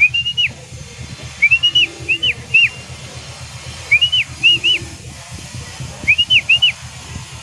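A person whistling to coax a racing pigeon into the loft trap: groups of two to four quick rising-and-falling whistles, repeated about every two seconds.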